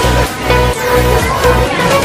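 Background electronic dance music with a steady beat and a synth melody.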